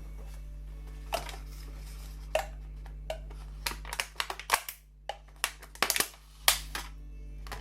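Irregular light knocks and clicks of kitchen utensils during food preparation, coming thicker from about four seconds in, over a steady low hum.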